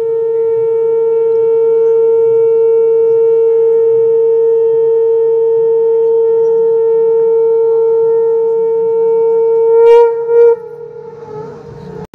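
Conch shell (shankh) blown in one long steady note that swells near the end and breaks into a short second blast before stopping, as part of the aarti ritual.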